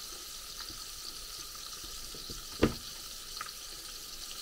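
Hot oil sizzling steadily as battered prawn tempura deep-fries in a pan, with one sharp knock about two and a half seconds in.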